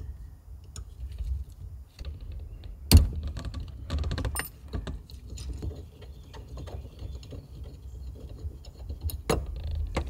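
Light clicks and rattles of a metal steering-wheel hub adapter and its wiring connectors being handled and taken apart on the steering column, with a sharp knock about three seconds in and another near the end.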